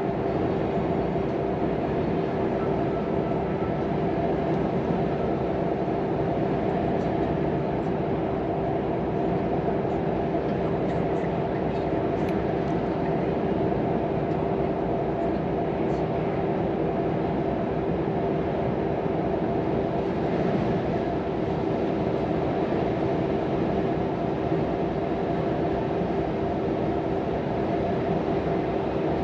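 Volvo FM 420 truck driving at a steady speed, heard from inside the cab: a steady engine drone with two even tones over road and tyre rumble.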